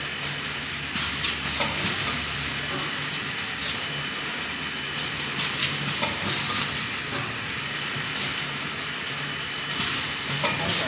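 Plastic bags of drinking straws crinkling and rustling as they are handled. Underneath is the steady hiss and low hum of an automatic straw counting and packaging machine running.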